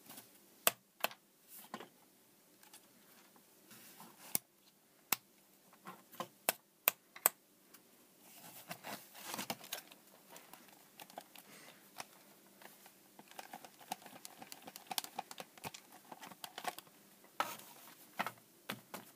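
Irregular sharp clicks and plastic handling rustle from working the corroded on/off switch and base of a Gemmy animated Santa, trying to get it to turn on. There are several loud clicks in the first few seconds, then a busier run of small clicks and rustling. The figure's song does not start.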